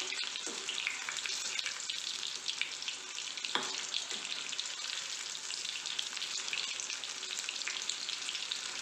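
Chicken kababs deep-frying in hot oil in a kadai: a steady crackling sizzle as the pieces cook, with a metal spoon stirring them in the pan and one sharper knock about three and a half seconds in.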